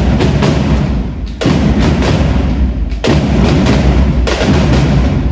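Loud music with heavy drumming: dense percussion with strong hits about every second and a half.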